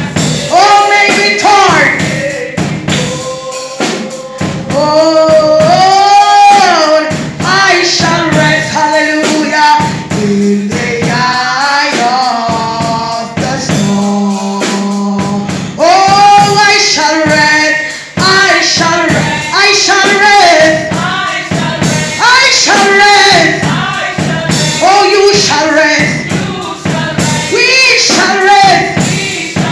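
A woman singing a gospel worship song into a microphone, amplified, with other voices joining and a tambourine shaken along to the beat.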